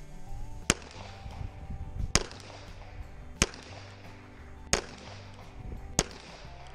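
Smith & Wesson 686 revolver firing five single shots, evenly paced about one and a third seconds apart, each with a short echoing tail.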